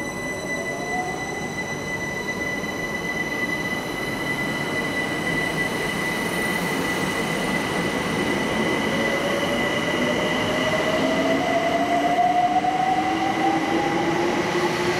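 London Overground Class 378 Electrostar electric train pulling out of the platform and accelerating. Its traction motor whine rises in pitch and grows louder as it picks up speed, over a steady high-pitched whine.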